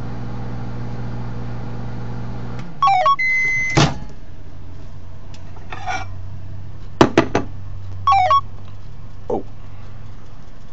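Microwave oven running with a steady hum that shuts off a little over two and a half seconds in. Electronic beeps and a clunk follow, then sharp clicks and another short run of beeps, typical of the door being opened and the keypad being pressed.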